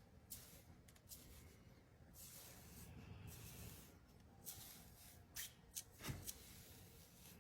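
Faint rubbing and rustling of small objects being handled, with three sharp clicks about five and a half to six seconds in.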